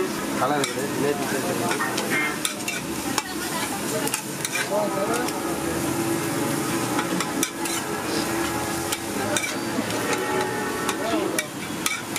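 Eggs and fish pieces frying on a large iron tawa with a steady sizzle. A spatula scrapes and clicks repeatedly against the griddle as the eggs are broken up and stirred into a scramble.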